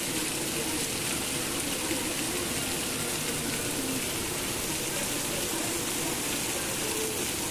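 Heavy rain pouring steadily on a street and rooftops, an even, unbroken hiss.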